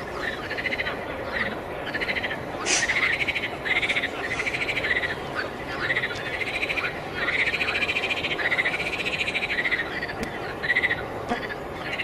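A chorus of frogs calling: overlapping pulsed croaks, each rising and falling in pitch, follow one another roughly every second.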